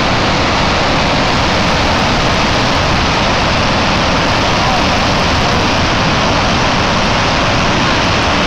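Steady, unbroken rush of floodwater discharging from a concrete arch dam's spillway and crashing into the river below.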